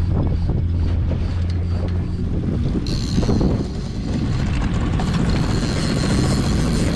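Boat motor running at low speed with wind buffeting the microphone and water noise. The steady engine hum drops away about two seconds in, and a louder rushing hiss takes over about a second later.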